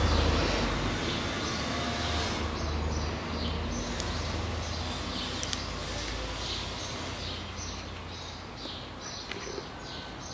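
Small birds chirping over and over, short high chirps, above a low steady hum that slowly fades away.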